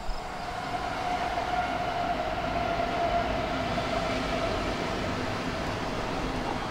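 CSX freight train running past, heard from inside a car: a steady rumble with a high whine held over it.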